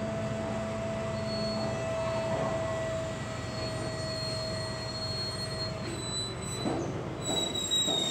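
Container wagons of a freight train rolling past at close range: a steady rumble of steel wheels on rail, with thin high squealing tones from the wheels. A few wheel knocks come near the end.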